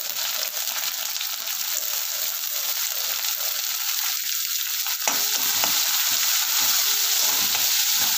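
Chopped carrot, beans and green chilli sizzling in hot oil in an iron kadai, stirred with a steel slotted spoon that scrapes the pan. The sizzle gets louder about five seconds in, with a few clicks of the spoon against the pan.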